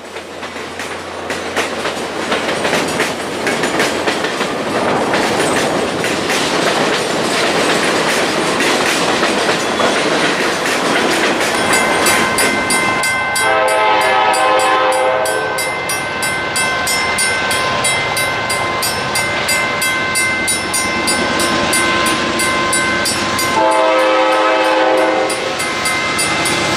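Passenger cars rolling past, a steady rushing rumble for the first ten seconds or so. Then a freight locomotive approaching sounds its horn: a long chord blast, then a shorter one near the end, over a steady high ringing.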